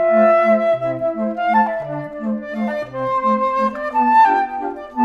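Background music: a flute-like woodwind melody over a steady pulse of short low notes.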